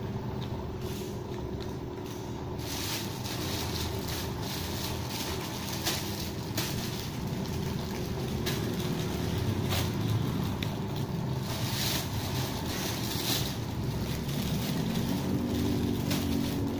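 Plastic carrier bag and snack packets rustling and crinkling as they are handled, in irregular bursts from a couple of seconds in, over a steady low machine hum.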